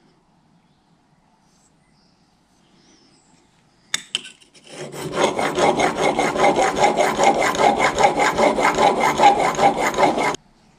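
A woodworking tool rasping across wood in quick, even strokes. It starts about five seconds in, after a couple of sharp clicks, and cuts off suddenly near the end.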